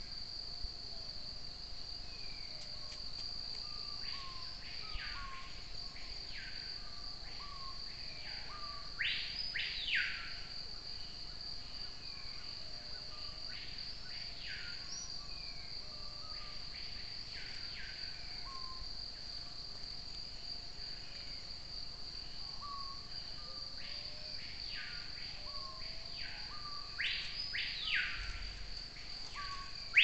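Tropical forest ambience: a steady high-pitched insect drone runs throughout, with scattered soft bird notes. Clusters of loud bird whistles that sweep sharply up and back down come about nine seconds in, again around fifteen seconds, and near the end.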